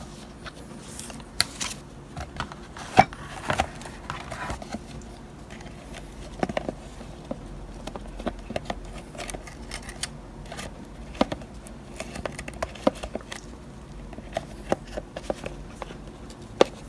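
Scattered light clicks, taps and rustles of items being handled, with a few sharper knocks, over a faint steady hum.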